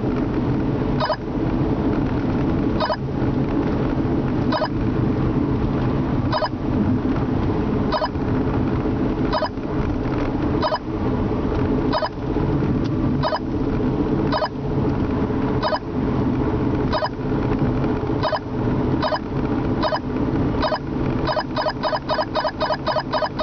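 Whistler 78SE radar detector sounding a Ka-band alert (34.7 GHz 'drone' signal) with short beeps over in-car road noise. The beeps come every second and a half or so, draw closer together, then turn into rapid beeping near the end as the signal grows stronger.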